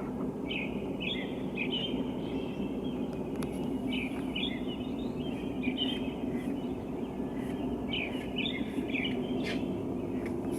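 Songbirds chirping before dawn: clusters of short, high, repeated chirps come and go, over a steady low background rumble.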